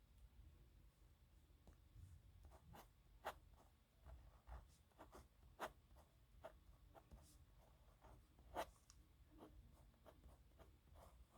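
A pen writing on paper: short scratchy strokes of the nib, with a few sharper ticks as it touches down.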